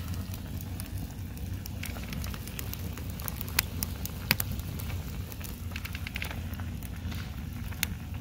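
Wood campfire crackling, with scattered sharp pops over a steady low rumble.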